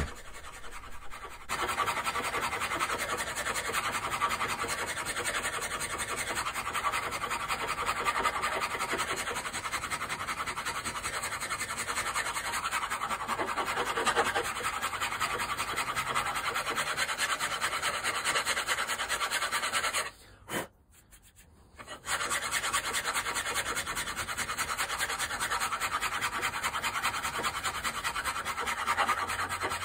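A hand file rasping steadily across cast iron as the rough base of an old vice is filed down. It stops for about two seconds around twenty seconds in, then resumes.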